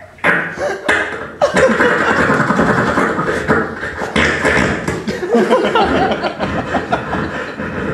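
A performer's mouth-made sound effects imitating someone pooping: a dense, continuous stream of sputtering vocal noises that starts about a second and a half in, after a few short ones.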